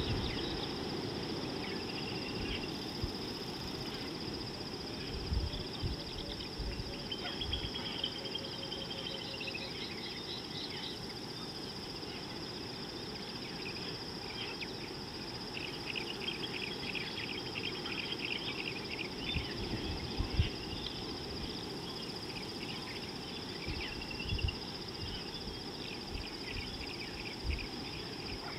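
Outdoor ambience at a watering hole: a low rumble of wind on the microphone with a few soft buffets, a steady high-pitched hum, and small birds chirping now and then, with a quick run of trills in the middle.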